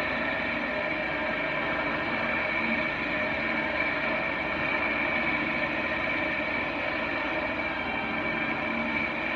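Cordless drill running steadily with its bit grinding a hole through the side of a glass whiskey bottle.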